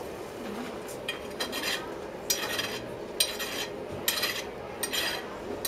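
Blacksmith's hammer striking metal on an anvil: a steady series of ringing blows, a little under one a second.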